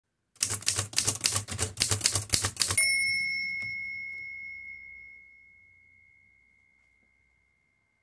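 Manual typewriter typing a quick burst of keystrokes, the typebars clacking against the platen. Then a single bell ding rings out and fades away over several seconds.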